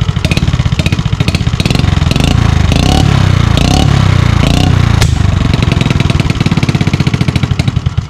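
TVS Scooty Pep's single-cylinder engine running loudly through an aftermarket free-flow exhaust. The exhaust beat comes as separate pulses at idle, runs faster and steadier for a couple of seconds in the middle as the throttle is raised, then drops back to separate pulses.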